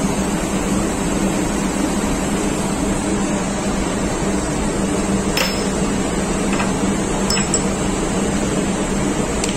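Steady, loud machinery drone with a constant low hum, as of running engine-room machinery. A couple of light metallic clinks a little past the middle as steel parts of the fuel injection pump are handled.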